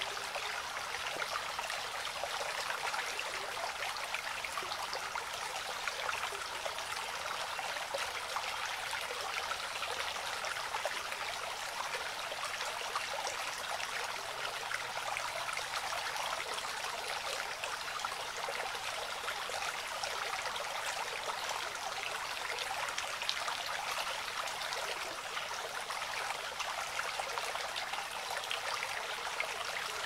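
Mountain stream running over rocks: a steady rush of water with fine splashing, mostly high and bright with little low rumble.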